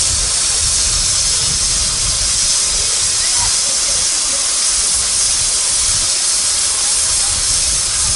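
Steady steam hiss from the standing JNR Class 8620 steam locomotive No. 8630, steam venting from the small exhaust pipe beside its chimney, over a low rumble.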